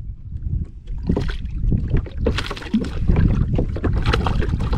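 Wind buffeting the camera microphone in a steady low rumble, with irregular splashes and slaps of water at the kayak's side.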